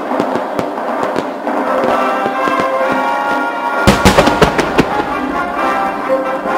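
Fireworks bursting over orchestral music, with scattered crackles and then a rapid cluster of loud booms about four seconds in.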